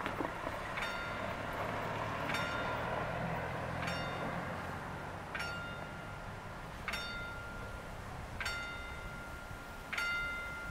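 Level-crossing warning bell (Wecker) of an EBÜT80 installation, the original 1982 bell, striking single ringing strokes about every one and a half seconds, seven times, to warn that the crossing is closing. A train's rumble fades away over the first few seconds.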